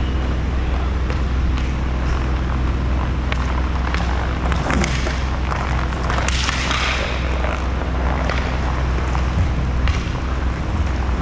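Inline hockey play over a steady low rumble: scattered sharp clacks of sticks and puck, with a louder rush of skate wheels and stick play close by about six seconds in.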